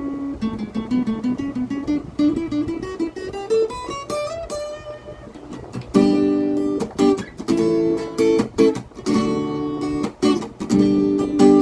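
Acoustic guitar playing: a melody picked note by note, then strummed chords from about six seconds in, with short breaks between strums.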